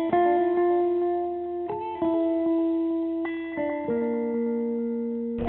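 Background music: a guitar playing slow, ringing single notes that are held, with a new note every second or so.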